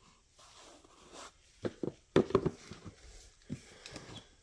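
A few soft knocks and rustles from handling and footsteps, short taps scattered through the middle of the stretch over faint room noise.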